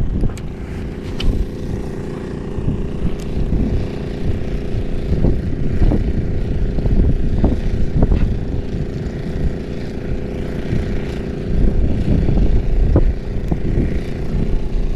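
Strong wind buffeting the microphone: a loud low rumble that swells and eases in gusts, with a few short clicks.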